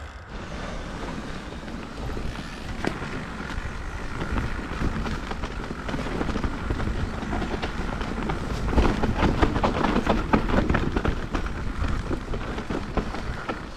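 Mountain bike riding down a rough trail: steady tyre noise on dirt, with dense rattles and knocks from the bike over roots and bumps that grow louder about nine seconds in.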